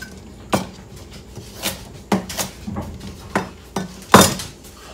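Chef's knife chopping baby carrots on a plastic cutting board: about eight sharp, irregular knocks of the blade hitting the board, the loudest near the end.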